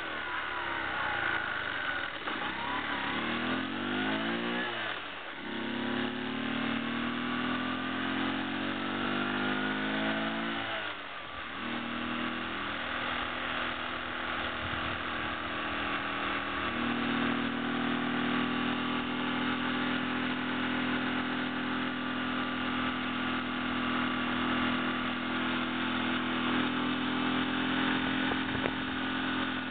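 Honda C70 Passport's small four-stroke single-cylinder engine pulling the bike along: its note climbs, drops back sharply twice at gear changes, then holds steady at cruising speed. Wind and road noise run underneath.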